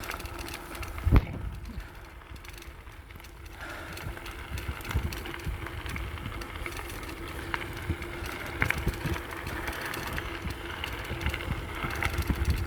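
Bicycle rattling and bumping over a rough forest trail, with a hard knock about a second in and a low, uneven rumble throughout.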